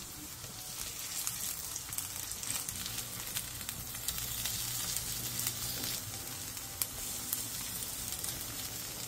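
Bean sprout pancakes sizzling steadily in hot oil in a frying pan, with scattered sharp crackles. Wooden spoons scrape and tap lightly against the pan as the pancakes are turned.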